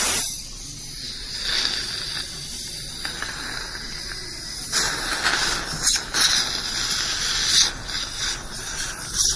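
Dental water spray and suction hissing in the mouth during a rinse. A loud spray stops just as the sound begins, and the hissing picks up again about five seconds in, with small clicks.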